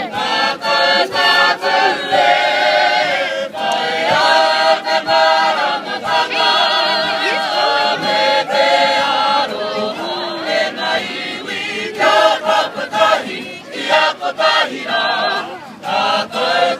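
A large group of people singing together unaccompanied, in long held notes with a wavering pitch.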